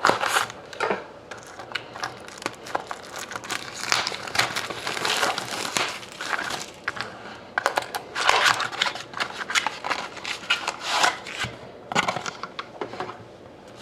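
A trading card mini box being opened by hand: a continual crinkling and tearing of its wrapping, with scattered sharp clicks and rustles of cardboard and packaging.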